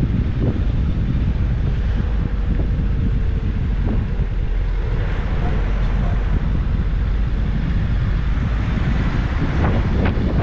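Wind buffeting the microphone of a camera mounted outside on a moving car, over a steady low rumble of the car and road. A few short sharp crackles come near the end.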